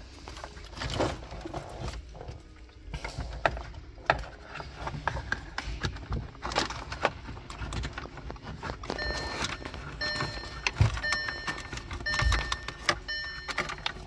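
Rustling and clicking of wiring and cables being handled and pushed through the plastic dashboard cavity of an Audi A4. From about nine seconds in, a short electronic tone sounds about once a second.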